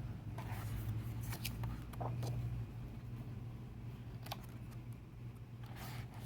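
Pages of a large photobook being handled and turned: a few short paper rustles and soft ticks scattered through, over a steady low hum.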